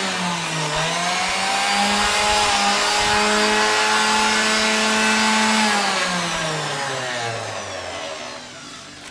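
Electric orbital sander running, its motor pitch dipping briefly about half a second in, then switched off around six seconds in and winding down to a stop.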